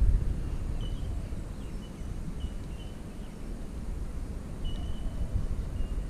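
Spinning reel being wound in, a steady low rumbling whirr close to the microphone. About eight short, faint high bird chirps are scattered through it.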